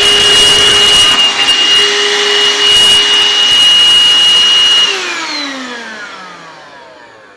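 Stick vacuum cleaner running with a steady high whine. About five seconds in it is switched off, and its motor winds down, the whine gliding lower as it fades.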